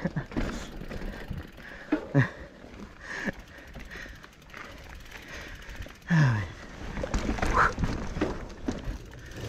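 Mountain bike riding a dirt trail: tyre noise and knocking and rattling from the bike, with a few short wordless voice sounds, the loudest a falling one about six seconds in.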